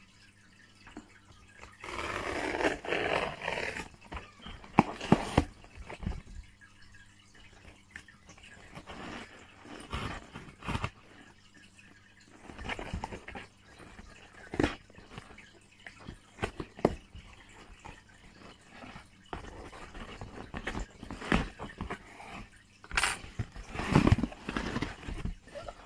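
A small cardboard box being opened by hand: rustling and scraping of cardboard and packing tape, with scattered taps and knocks.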